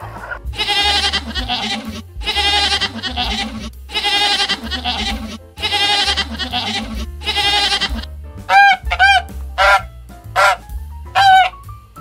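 Goats bleating in five long, wavering calls, then domestic geese honking in about five short, sharp calls from about eight seconds in, over quiet background music.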